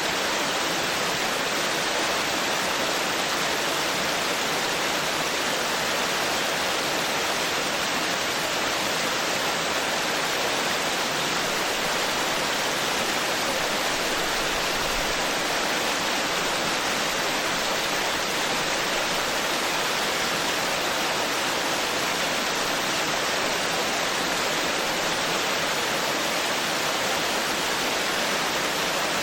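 Forest stream babbling, water running and splashing in a steady, even rush.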